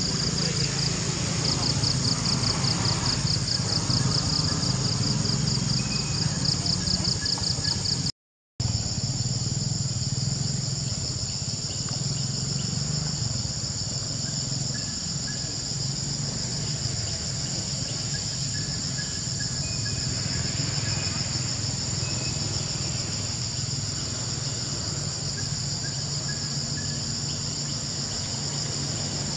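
Insect chorus: a shrill, high-pitched drone that pulses rapidly for the first eight seconds and then holds steady after a brief dropout, over a low steady hum.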